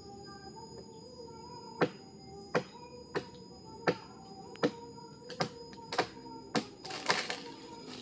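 Sharp chopping blows from a hand blade cutting into a tree limb, about one every 0.7 seconds, nine in all, over faint background music. Near the end the blows blur into a crackling rustle as the cut branch gives way.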